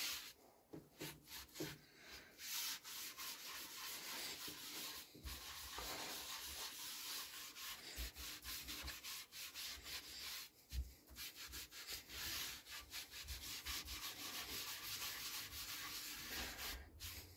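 A kitchen sponge with a green abrasive pad scrubbing back and forth over a wet MDF board, a fast run of short, scratchy rubbing strokes that pause briefly about ten seconds in.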